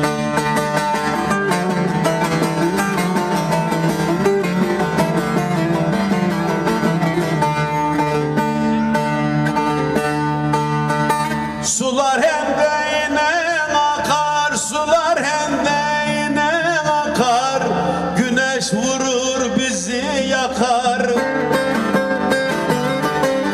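Bağlama, the Turkish long-necked saz, played steadily by plucking and strumming. About halfway through a man's voice joins, singing a Turkish folk song (türkü) in a wavering, ornamented line over the saz.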